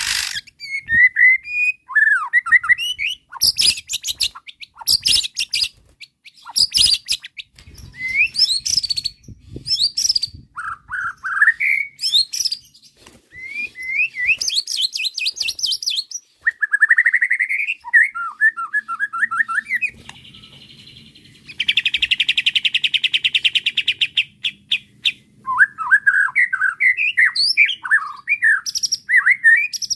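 White-rumped shama in full song: a varied run of short whistled phrases, slurred notes and fast trills, with a long even buzzing rattle about two-thirds of the way through.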